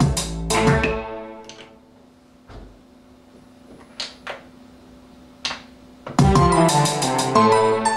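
Music played from a synthesizer keyboard workstation. A keyboard pattern with piano-like notes stops about a second in, a few single short sounds are triggered in the gap, and the pattern starts again about six seconds in and stops near the end.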